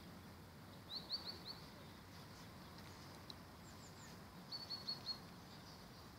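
A small bird calling: two quick runs of four or five short, high chirps, about a second in and again past the middle, over a faint steady background hiss.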